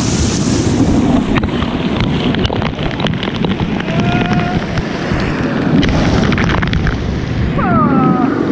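Loud rumbling wind buffeting and rushing, splashing water on the microphone during a water-park ride, with scattered knocks and a few short squeals near the end.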